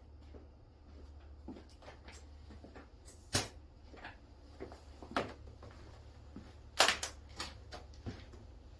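Scattered sharp clicks and knocks of air-hose fittings as the chucks are unclipped from the tire valves, three louder ones at about three and a half, five and seven seconds in, over a steady low hum.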